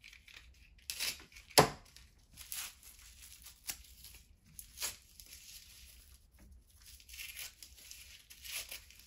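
Wrapping being torn and crinkled by hand as candles are unwrapped, in short rustling strokes, with one sharp tap about a second and a half in.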